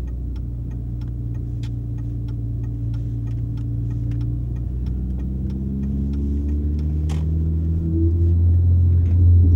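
Mini Cooper S four-cylinder engine heard from inside the cabin, pulling in first gear; its pitch and loudness rise over the last few seconds as the car speeds up. A turn-signal relay ticks about three times a second and stops about six seconds in, and a single sharp click sounds about a second later.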